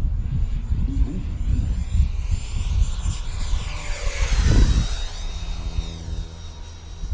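Electric ducted-fan turbine of a small foam model jet making a fast low pass: a high whine that swells and drops in pitch as it goes by, about four seconds in. Wind rumbles on the microphone underneath.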